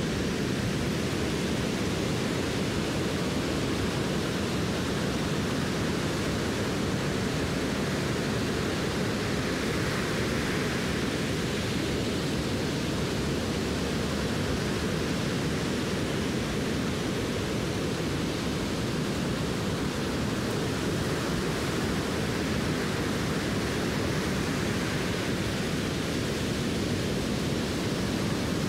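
Waves breaking on a sandy beach together with wind on the microphone: a steady rushing noise, heaviest and flickering in the low end.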